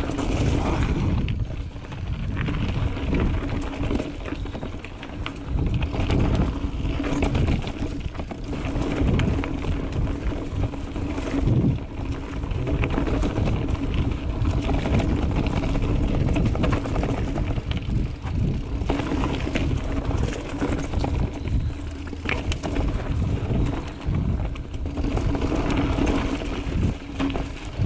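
Mountain bike riding along a dirt trail: a steady rumble of wind and tyre noise with frequent rattles and clicks from the bike, and a faint steady hum throughout.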